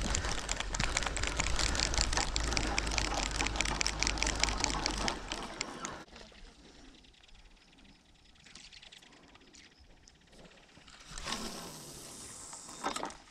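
Rapid, dense clicking of a spinning fishing reel being reeled in, over a low rumble of wind on the microphone; both cut off abruptly about six seconds in, leaving a quiet background with a short rush of noise near the end.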